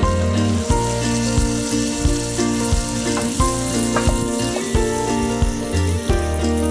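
Blended sambal paste sizzling in hot oil in a frying pan as it is spread over fried onions, under background music with a steady beat.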